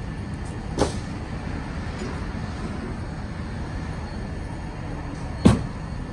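Two sharp wooden knocks of split hickory firewood being set or dropped onto a woodpile, a lighter one about a second in and a louder one near the end, over a steady low rumble.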